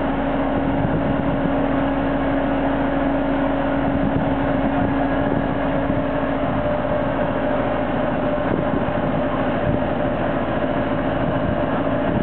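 Travel lift's engine and hydraulics running in a steady drone with a constant hum as it slowly lowers a sailing yacht in its slings.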